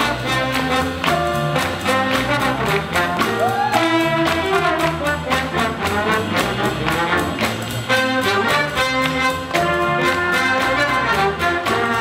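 A swing jazz band playing, with trumpets and trombones carrying the tune over a steady drum beat and upright bass.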